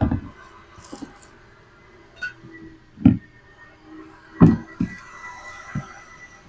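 Several short dull knocks and thumps, about five in all, as cleaning supplies are handled at an open car door and a spray bottle is set down on concrete, with a soft rustle of a plastic bag between them. A faint steady hum runs underneath.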